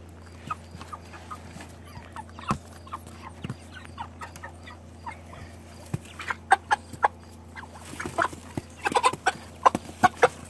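Chickens clucking and squawking in short bursts while one is being grabbed out of the flock, with rustling and knocking in the straw and wire around them, over a steady low hum. The commotion grows busier and louder in the last few seconds.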